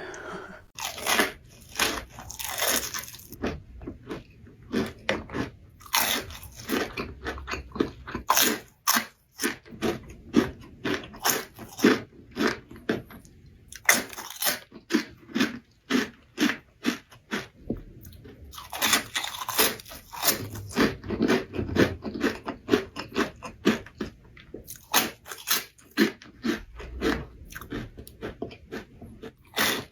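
Close-miked eating: repeated crunchy bites and chewing, in irregular bursts of sharp crackles.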